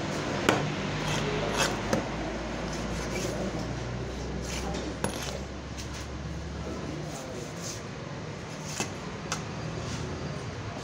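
Large curved knife clicking and knocking against a wooden chopping block as shark flesh is cut, a few sharp separate clicks spread through the seconds. Underneath are steady background noise and a low hum that stops about seven seconds in.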